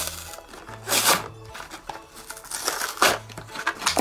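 Toy packaging being crinkled and torn open in several short bursts, over background music.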